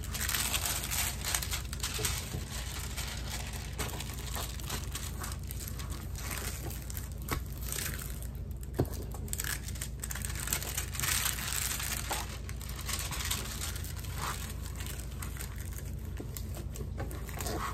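Clear plastic film on a diamond painting canvas crinkling and crackling under hands that smooth and press the canvas flat, with scattered small clicks.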